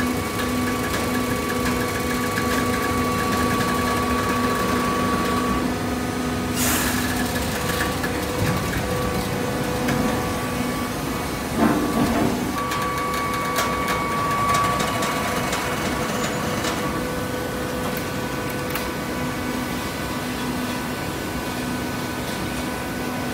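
Hydraulic vertical baler's pump motor running steadily, with a short hiss about six and a half seconds in and a few clunks around twelve seconds.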